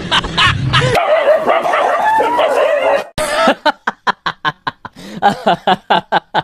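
A dog whining and yelping with a wavering pitch. About three seconds in, this gives way to a fast run of short, sharp cries, several a second.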